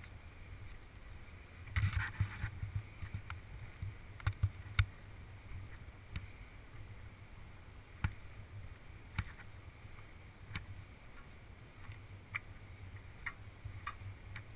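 Road noise of a car driving at speed: a steady low rumble from the tyres and road, with scattered short knocks and ticks, bunched together about two to five seconds in.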